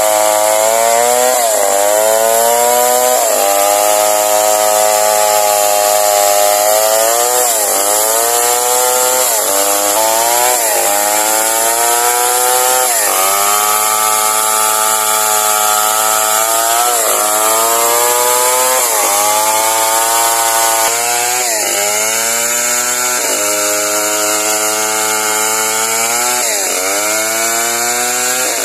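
Two-stroke chainsaw cutting through a felled coconut palm trunk, held at high revs, its pitch dipping briefly and recovering every second or two as the chain bites into the wood.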